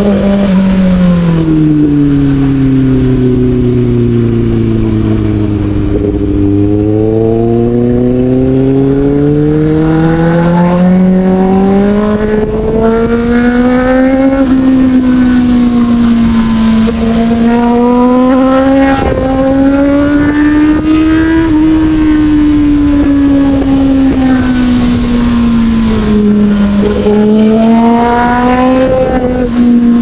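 Motorcycle engine heard from the rider's seat on the move, its revs falling for the first several seconds, then rising and easing again and again as the throttle is opened and closed, with a dip near the end before climbing again. Wind rush runs underneath.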